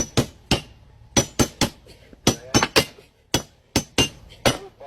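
Hammers striking metal over and over: about fourteen sharp ringing blows, most falling in quick clusters of two or three, as if several hammers are taking turns.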